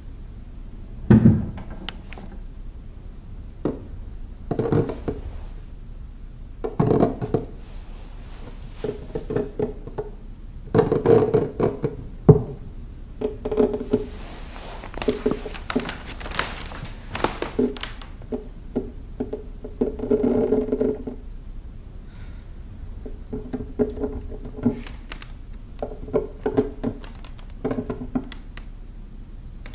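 Irregular hollow knocks and thuds from inside an old wooden chest, some single and some in quick clusters, with a longer rasping noise about halfway through.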